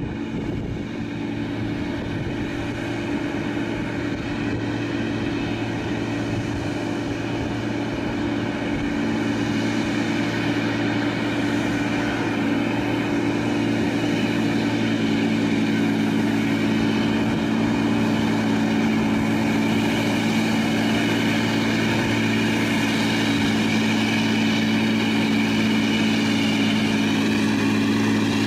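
Scania 360 log truck's diesel engine running steadily as the fully loaded truck approaches, growing gradually louder as it nears.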